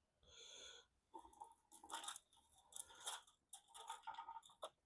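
Faint handling noises: a soft hiss, then a string of light, irregular clicks and scrapes as the metal camshaft-carrier gasket is handled on the engine.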